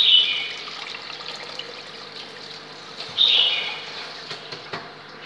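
Water poured in a stream from a plastic jug into a hot glass pot holding oil and lemongrass. There are two short, louder bursts of splashing, one at the start and one about three seconds in.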